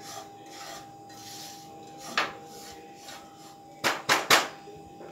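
Spatula scraping through a pan of dry roasted semolina, with a short scrape about two seconds in and three quick, louder scrapes about four seconds in.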